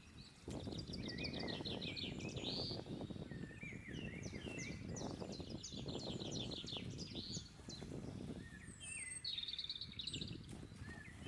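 Water splashing and sloshing around wading legs in shallow water, in uneven surges. Over it, birds chirp in quick trilled runs of short notes, several times.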